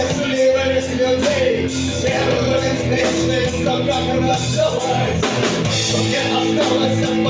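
Rock band playing live, a steady full-band passage with drums and sustained instrument notes and no clear sung words.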